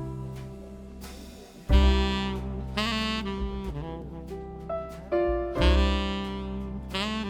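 Jazz background music led by a saxophone, with a new phrase entering every second or two over low bass notes.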